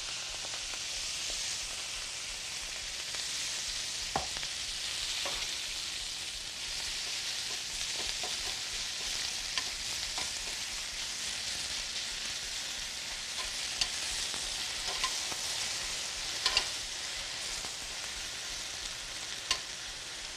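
Arugula sizzling in a hot sauté pan with eggplant as it wilts down: a steady frying hiss with a few sharp clicks scattered through it.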